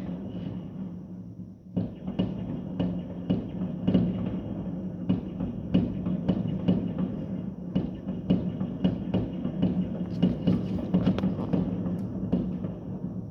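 Fireworks and firecrackers going off: a dense, irregular run of bangs and cracks, several a second, with a short lull about a second and a half in. A steady low hum runs underneath.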